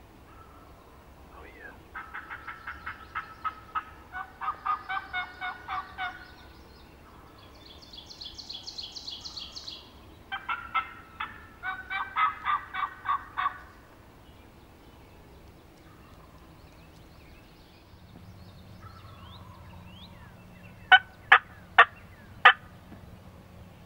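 Turkey yelping: several runs of quick, evenly spaced notes, about four a second, each run lasting a couple of seconds, with one higher-pitched run in the middle. Near the end come four sharp, loud clicks close by.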